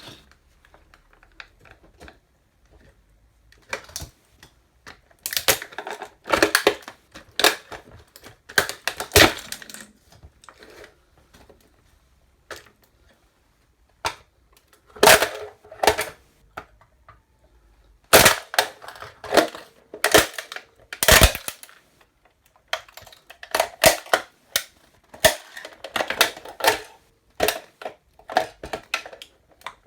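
A toy truck being crushed under boots: bursts of sharp cracks and snaps with short pauses between them.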